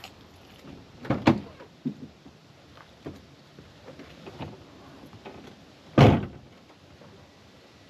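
Car door handling before a cold start: a clunk about a second in, a few light clicks and knocks, then a loud thump about six seconds in as the door shuts.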